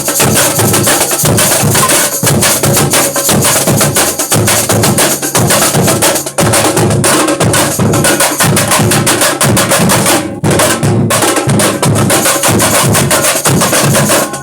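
A comparsa drum troupe playing loud ensemble percussion: bass drums and snare drums in a fast, driving rhythm, with short breaks in the beat about six and ten seconds in.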